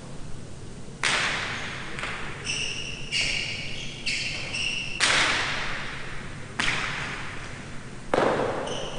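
Jai alai rally: a hard pelota cracking off the fronton walls and cestas about seven times, roughly once a second, each hit ringing out in the hall's echo. Short high squeaks come in between about the third and fifth hit.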